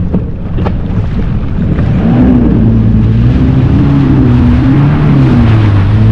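Yamaha jet ski engine throttling up about two seconds in and then running under power, its pitch wavering up and down, with water rushing past the hull.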